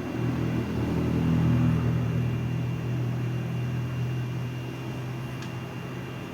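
A steady low mechanical hum with a few even tones. It swells over the first second and a half, then slowly eases off.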